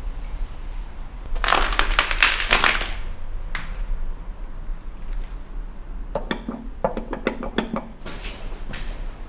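Footsteps crunching and clinking over debris in two bouts, about a second and a half in and again around six to eight seconds in, with a single sharp click between them.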